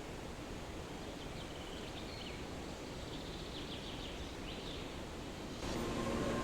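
Steady rushing water of a waterfall, with a bird chirping in short high calls through the middle. About five and a half seconds in, it gets louder and a steady hum with several tones joins.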